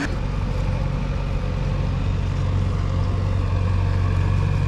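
A motor running steadily: a constant low hum with several faint steady tones above it.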